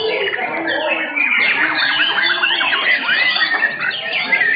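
Several white-rumped shamas (murai batu) singing at once in competition, a dense tangle of loud overlapping whistles, fast chirps and rising and falling sweeps.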